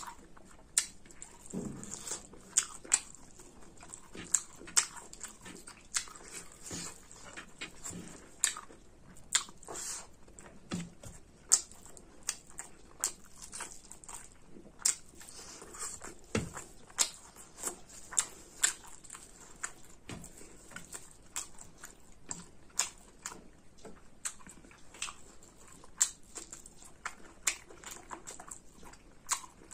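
Close-miked eating sounds of a person chewing a mouthful of pork curry and rice: wet chewing, lip smacks and crunching in many sharp, irregular clicks, several a second.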